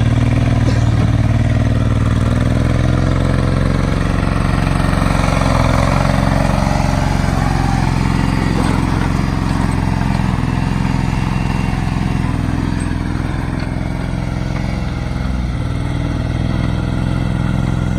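Kubota L39 tractor-loader-backhoe's four-cylinder diesel engine running steadily. A higher hiss swells and fades in the first half.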